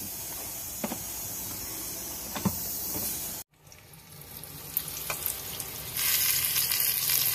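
Cook's Essentials electric pressure cooker being unlocked and opened: a steady hiss with a couple of light clicks as the lid is turned, then a louder, brighter sizzling hiss from about six seconds in as the lid comes off the hot stew.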